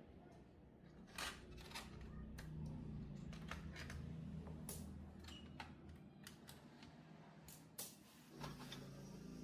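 Faint, irregular light clicks and taps of small hard parts and tools being handled during hands-on repair work, about ten over several seconds, over a faint low hum.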